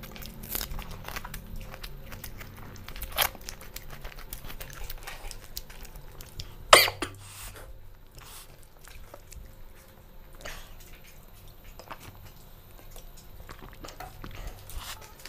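People eating rice and chicken curry by hand from metal plates: fingers working the rice against the plates and chewing, with many small clicks and a sharp louder sound about seven seconds in.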